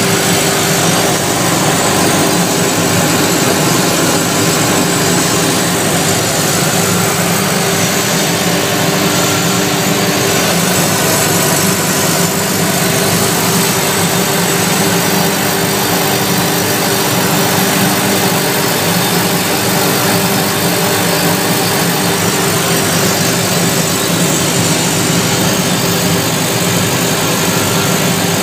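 MIDAS 300 dry copper separation table running steadily: an even mechanical hum with a loud rushing noise over it, as its vibrating deck carries granulated copper wire across and off the edge.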